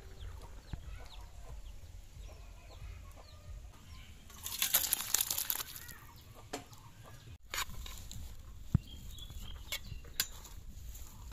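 Faint clucking of chickens throughout. Midway comes a loud burst of scraping and pouring as the curry is emptied from the iron wok into a steel bowl, followed by a few sharp clinks of a steel ladle against steel dishes while rice is served.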